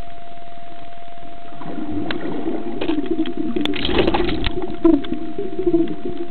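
Muffled underwater sound picked up by a snorkeler's camera: a steady hum with a thin constant tone over churning water. It swells about four seconds in into a burst of sloshing water with a few knocks as the camera nears the surface.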